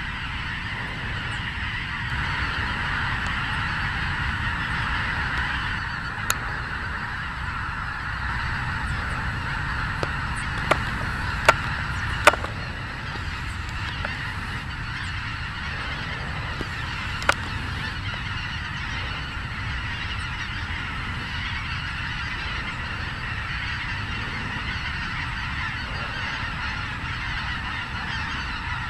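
A large flock of snow geese in flight, hundreds of birds honking at once in a dense, continuous chorus. A few sharp clicks cut through it, the loudest two around the middle.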